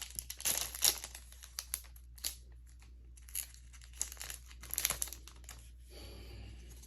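Crinkling foil wrapper of a Yu-Gi-Oh booster pack being handled and torn open: a run of sharp crackles through the first five seconds, then only faint handling.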